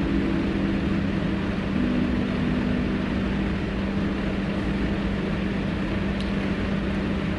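Steady background noise: an even hiss with a constant low hum, like a fan or air conditioner running in the room, with a few faint held low tones in the first few seconds and a small tick about six seconds in.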